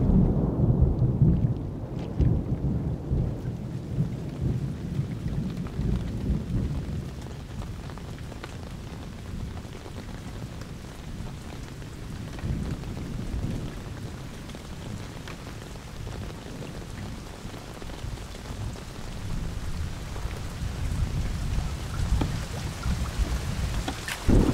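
Rain falling steadily on a lake's surface, under a low rumble that is strongest in the first two seconds and swells again towards the end.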